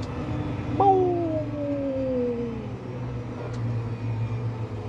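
Four-cylinder engine of a Valtra N174 Direct tractor running steadily, heard from the cab. About a second in, a whine starts suddenly and falls steadily in pitch for about two seconds.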